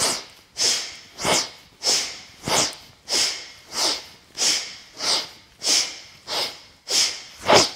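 A woman's strong, rhythmic breathing during an alternating rope-pull arm exercise: short, forceful breaths at an even pace of about three every two seconds.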